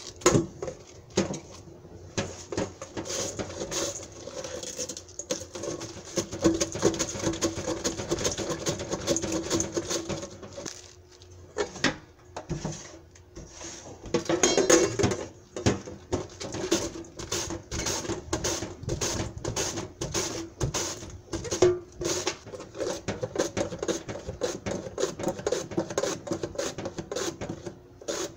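Cabbage being shredded on a plastic mandoline slicer over a stainless steel bowl: quick repeated rasping strokes as the head is pushed back and forth across the blade, pausing briefly about eleven seconds in.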